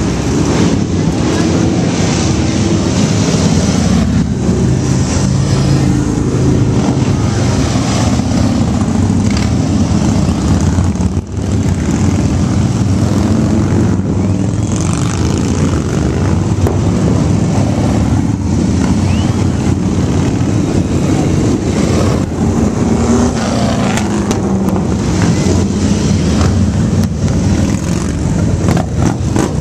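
A stream of Harley-Davidson V-twin cruiser motorcycles riding past one after another, their engines running loud and steady, with a brief lull about eleven seconds in.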